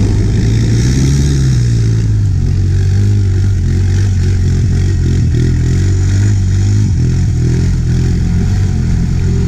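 Quad ATV engine running under throttle as the ATV drives through shallow muddy floodwater, its note rising briefly about a second in, with water splashing from the wheels.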